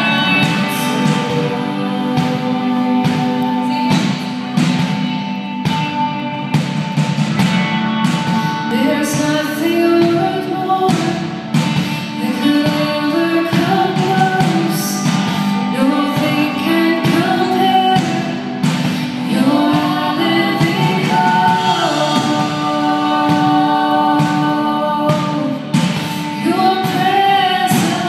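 A woman singing a worship song with held notes over instrumental accompaniment.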